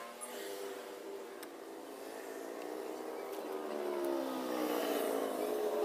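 Another vehicle's engine running nearby, its pitch slowly falling and rising again, with a couple of light clicks as the valve cover is fitted.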